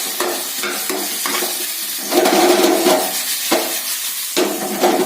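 Chicken frying in oil in a pan, sizzling, while a spatula stirs it in repeated scraping strokes against the pan. Two louder stretches of scraping come about two seconds in and near the end.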